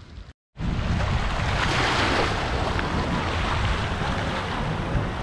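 Wind buffeting the microphone with a low rumble over a steady wash of sea waves on a rocky shore, starting abruptly about half a second in.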